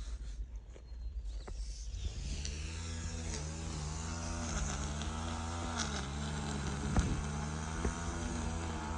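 An engine running steadily, starting about two seconds in, its pitch stepping slightly up and back down.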